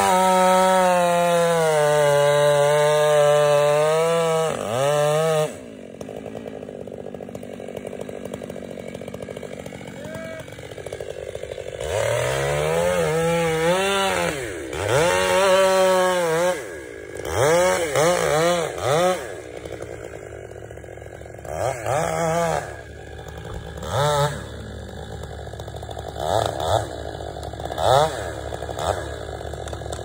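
Two-stroke chainsaw at full throttle cutting through a tree trunk for about four and a half seconds, its pitch sagging a little under the load. It then drops back to idle and is revved in a series of short bursts.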